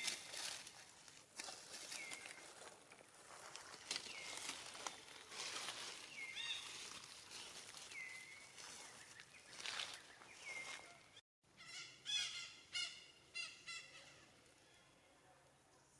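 Dry leaves rustling and crunching as macaques move over leaf litter, with a short call repeating about every two seconds. After a brief break, a run of wavering animal calls comes about 12 seconds in, then fades to faint outdoor ambience.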